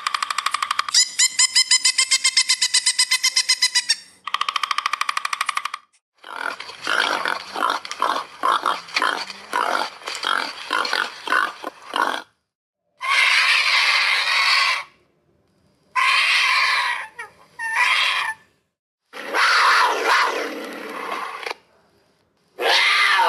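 A sequence of different animal calls: a rapid pulsed call, then a run of fast grunts, then several separate harsh calls a second or two long.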